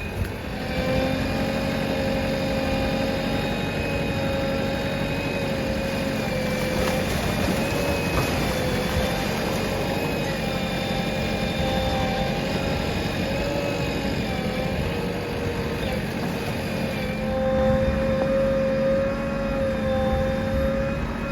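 JCB 3DX backhoe loader's diesel engine running steadily with a whine over it, a little louder about three quarters of the way through.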